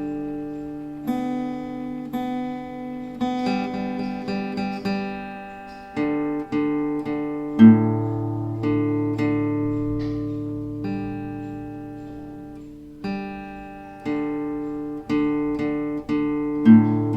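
Background music: plucked acoustic guitar notes and chords, each ringing out and fading before the next.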